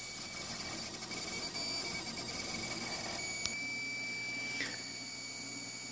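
Craftbot 3D printer running a print: its cooling fans whir with a steady high whine while the stepper motors drive the print head. There is a single click a little past halfway.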